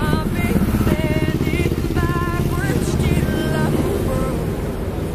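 A motor engine running close by, with music over it.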